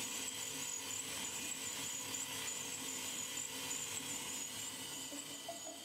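All-metal model DOHC four-cylinder engine running on its small electric drive motor: a steady mechanical whir with a high, wavering whine.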